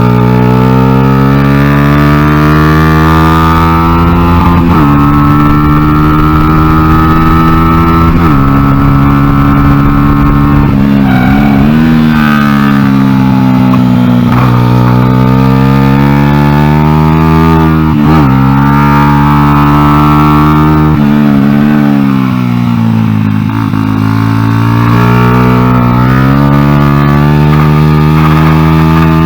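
Honda XR100 single-cylinder four-stroke engine in a small NSF100 race bike, revving hard as the bike laps the track. The pitch climbs steadily, then drops sharply at each gear change, many times over, with a few dips where the throttle is eased for corners.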